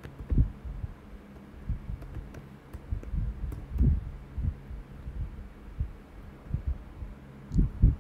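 Irregular dull, low thumps of typing on a computer keyboard, heard mostly as knocks through the desk, over a steady low electrical hum.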